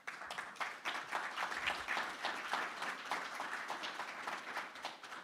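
An audience of a few dozen people applauding, many hands clapping at once, starting right away and dying off near the end.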